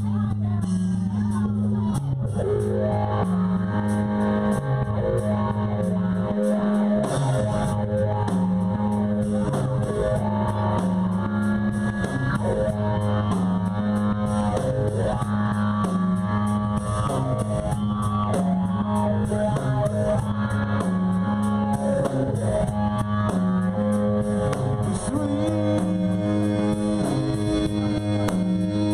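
Live rock band playing: guitar over a bass line that keeps repeating, with a drum kit.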